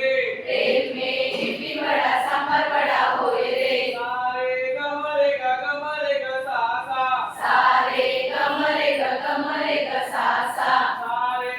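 A group of voices singing a Hindi action song in a chant-like style, with two louder, rougher stretches where more voices join in.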